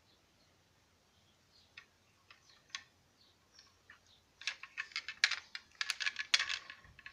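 Handling noise from a 1:32 Bburago diecast Alfa Romeo Giulietta model being turned over in the hands: a few light clicks, then a dense run of sharp clicks and taps from about four and a half seconds until near the end.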